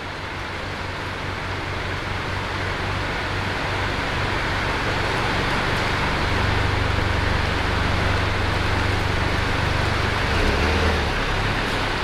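2019 BMW M135i's turbocharged 2.0-litre four-cylinder running at low revs with a steady low hum as the car moves slowly toward the camera, growing louder as it comes closer, over a steady background hiss.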